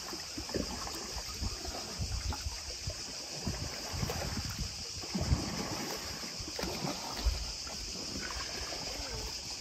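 Water lapping and sloshing against a boat's hull in small, irregular splashes.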